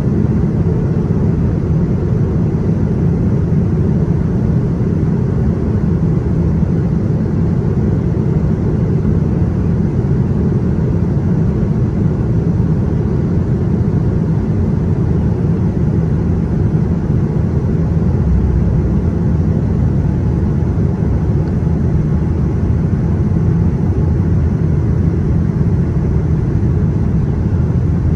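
Steady low rumble of a jet airliner's cabin in flight: engine and airflow noise heard from a window seat over the wing, even and unchanging.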